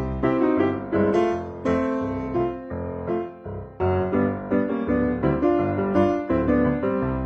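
Background music: solo piano playing a slow melody over chords.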